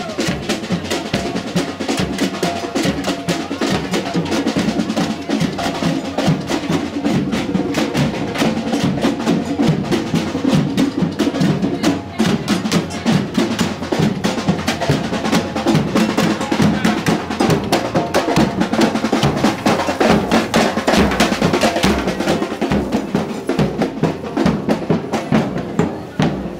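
Drumming with a fast, steady beat, loud, over the voices of a packed street crowd.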